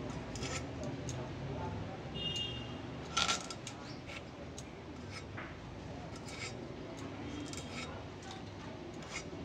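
Crisp snips and clicks of green vegetable stalks being cut against a boti, a fixed curved blade, a piece at a time, with one sharper crack a little over three seconds in.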